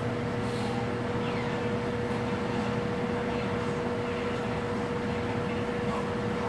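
Over-the-range microwave oven running, a steady electrical hum.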